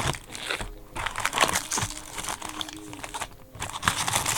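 Irregular crinkling and crumpling of foil wrappers on packs of 2013 Bowman Draft Jumbo trading cards as they are handled and torn open, with a few sharper crackles.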